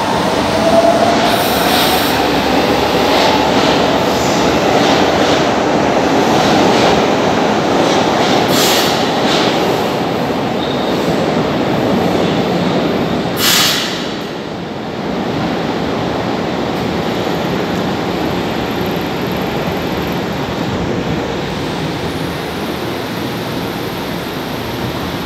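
São Paulo Metro train running through an underground station, a loud, continuous rumble of wheels and motors with a faint gliding whine at first. A short sharp hiss comes about halfway through, and the noise then settles a little lower and steady as a train comes in and stands at the platform.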